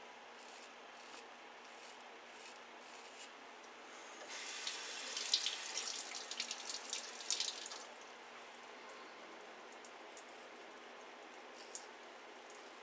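Water tap running into a sink for about three and a half seconds, starting about four seconds in, with splashing as the shavette is rinsed under it. Before and after, faint scratches of the shavette blade cutting stubble.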